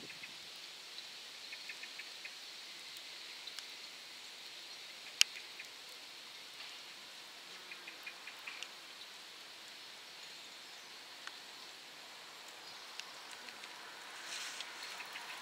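Light rain: a steady soft hiss with scattered drops ticking in short quick runs, and one sharp tick about five seconds in.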